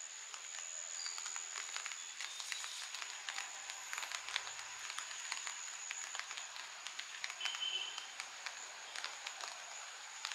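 Faint rural outdoor ambience: a steady high-pitched insect drone with scattered faint ticks, and a brief chirp about three-quarters of the way in.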